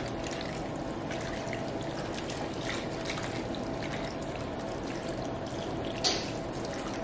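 Beef bone broth thickened with cornstarch pouring in a steady trickle from a glass measuring cup into the broth already pooled in a foil roasting pan. A short sharp click about six seconds in.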